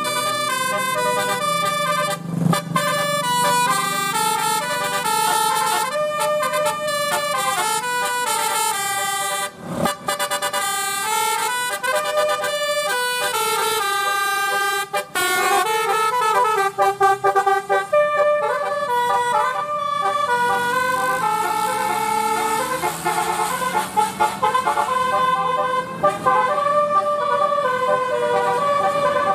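Multi-tone 'telolet' musical air horns playing a quick melody of stepped notes. Past the middle comes a stretch of gliding, siren-like tones.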